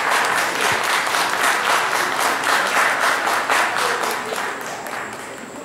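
Audience applauding, with many hands clapping at once, dying down near the end.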